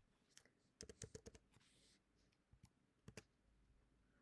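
Faint computer keyboard and mouse clicking: a quick run of several clicks about a second in, then a couple more a little after three seconds.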